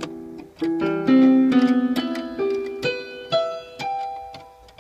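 Yamaha PSR-275 portable keyboard playing its piano voice with sustain switched on. It plays a slow string of single notes, each one ringing on under the next, and the last few climb higher in pitch.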